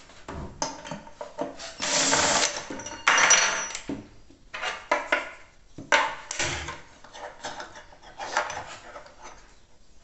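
Cordless drill-driver running in several short bursts, driving screws through a metal corner bracket into a wooden cabinet, with small knocks between the runs.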